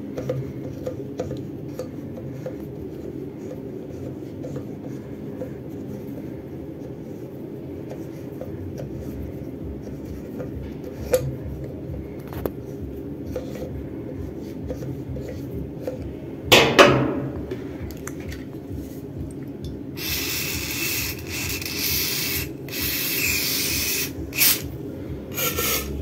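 Pliers gripping and twisting the stuck shaft of a Whirlpool washer's water pump, a low scraping and rubbing with a few clicks and one loud clank about two-thirds of the way in. Near the end come several short hisses of aerosol penetrating oil sprayed onto the shaft to free it.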